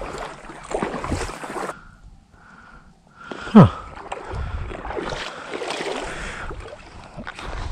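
A person wading through shallow pond water, the water sloshing and splashing with the steps. About three and a half seconds in comes one short, loud sound that slides down in pitch.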